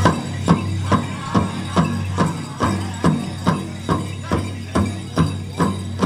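Powwow drum beaten in a steady, even rhythm, about five strong beats every two seconds, keeping time for dancers.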